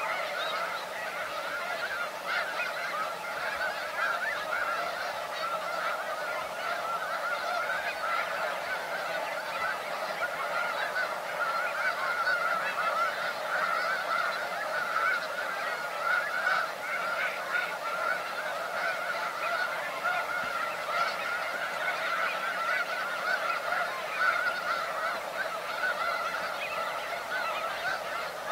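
A large flock of snow geese honking continuously, a dense chorus of many overlapping calls with no pauses.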